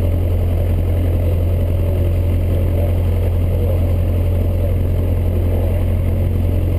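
A single-engine Cessna's piston engine and propeller running at steady power, heard from inside the cabin as a constant low drone.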